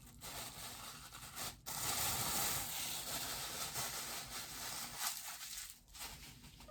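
Packaging rustling as a bobblehead's base is pulled out of its box and handled, busiest in the middle and tailing off near the end.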